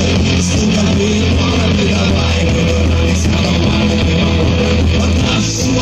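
Rock band playing live through a PA system, heard from within the crowd: electric guitars over a steady low bass line that drops out about five seconds in.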